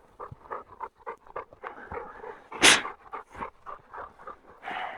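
A bird dog panting in quick, even breaths, about three or four a second. A single loud, short rush of noise cuts across about two-thirds of the way through.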